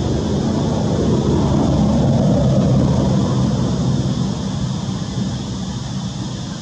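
Low engine rumble of a passing vehicle, swelling to a peak about halfway through and then slowly fading.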